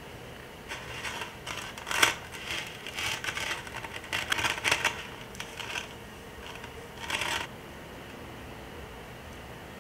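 A log of cookie dough rolled in granulated sugar in an enamel tray: gritty scraping and rustling of sugar crystals against the dough and tray, in uneven bursts for about seven seconds.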